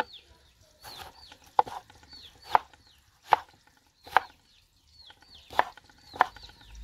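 Knife chopping through tomatoes onto a cutting board: about seven single sharp knocks, roughly one a second, with a short pause midway. Short, high, falling bird chirps run behind the chopping.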